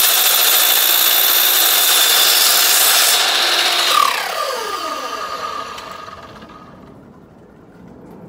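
Ridgid miter saw with a wood-cutting blade running loud and steady as it cuts through square aluminum tubing. About four seconds in, the trigger is let go and the blade spins down with a falling whine that fades away.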